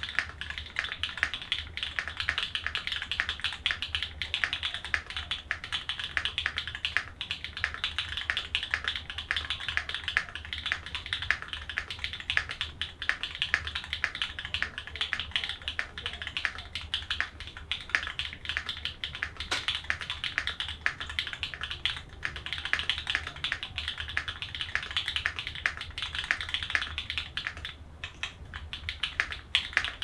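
Continuous fast typing on an E7V2 custom mechanical keyboard with an aluminium plate, Cobalt POM switches lubed with Krytox 205g0, tuned EG V3 stabilizers, both foams installed, and JTK keycaps: a dense, even stream of keystroke clicks, with a short pause near the end.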